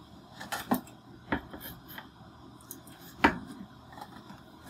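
A few sharp knocks and light clatter of props being handled as a rod puppet is set into its wooden stand. The loudest knock comes about three seconds in.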